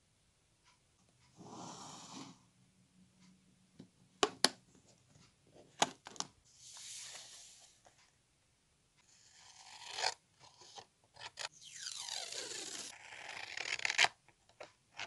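Paper handling: pages of a small hardbound journal turned with soft rustling swishes, and a few sharp clicks, the loudest sounds, about four and six seconds in. Near the end, scissors cut through a sheet of patterned paper with a scraping, crunching sound.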